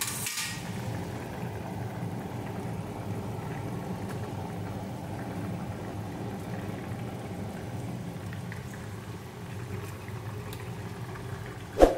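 Fish curry with ridge gourd and potato bubbling at a simmer in an iron kadai over a gas burner, a steady low bubbling and sizzling. A brief sharp sound stands out near the end.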